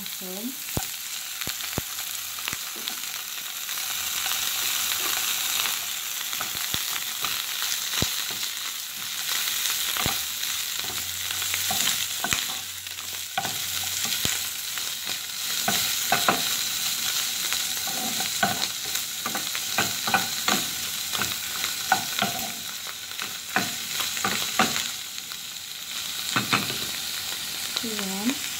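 Celery, carrot and mushroom slices sizzling in hot oil in a nonstick wok, stir-fried with a wooden spatula that scrapes and taps against the pan again and again.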